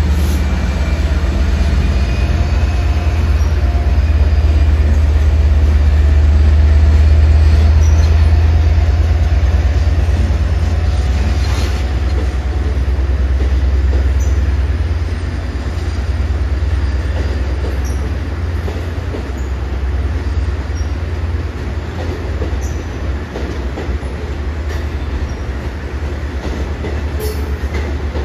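Long Island Rail Road train running: a steady heavy low rumble with faint thin wheel-squeal tones over the first several seconds. The rumble eases off somewhat in the second half.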